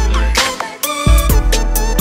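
Background music: a song with a deep, heavy bass beat and melodic lines over it.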